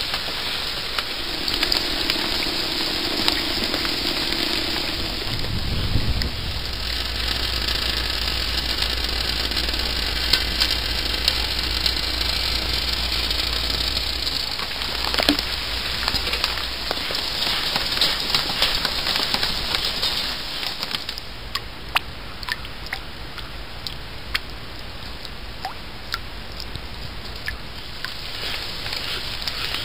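Steady summer rain shower pattering down, with many sharp drops ticking and splashing into water. A low steady rumble runs under it for several seconds early on, and the rain eases off a little about twenty seconds in.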